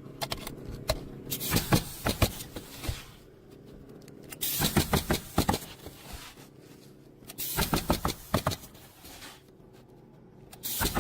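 Bursts of rapid knocking and clatter, four times about three seconds apart, over a steady low hum.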